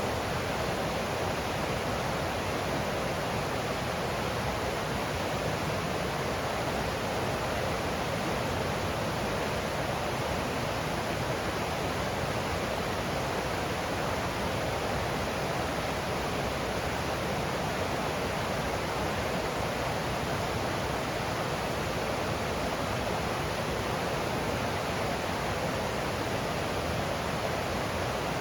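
Stream water rushing over rocks in a steady, even flow.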